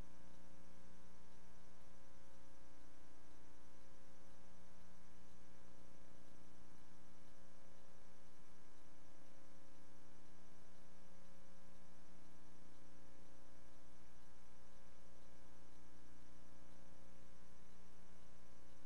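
Steady electrical hum made of several unchanging tones, with hiss over it: the noise floor of a silent archival film transfer.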